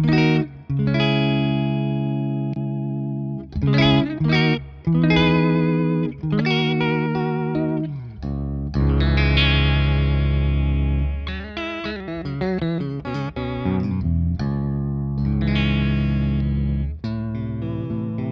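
Electric guitar played through an EarthQuaker Devices Aqueduct vibrato pedal in sine-wave mode, fully wet with the depth about halfway. Its chords and notes wobble evenly up and down in pitch, a classic vintage vibrato. The playing turns fuller and lower about halfway through.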